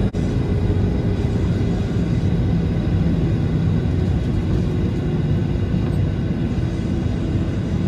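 Cabin noise of a Boeing 737-800 taxiing: a steady low rumble with the steady hum of its CFM56-7B engines, heard from inside the cabin.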